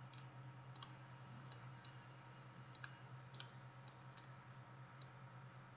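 Faint computer mouse clicks, about ten, irregularly spaced, over a steady low electrical hum.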